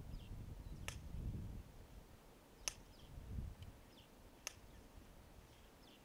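Quiet outdoor ambience: faint short bird chirps, a low wind-like rumble in the first second and a half, and three sharp clicks about two seconds apart.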